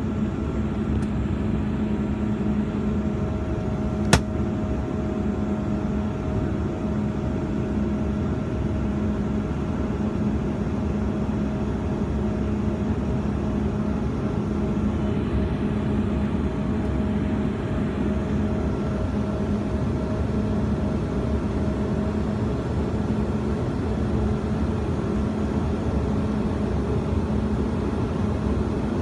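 Steady cabin noise inside a Bombardier CRJ-200 climbing after takeoff: the drone of its rear-mounted General Electric CF34 turbofans mixed with rushing air, with a few faint steady tones in it. A single sharp click about four seconds in.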